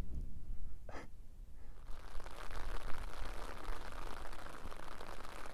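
Rain pattering on an open umbrella overhead: a dense spatter of small drop hits that sets in about two seconds in, over a low rumble. Before it, one short breath.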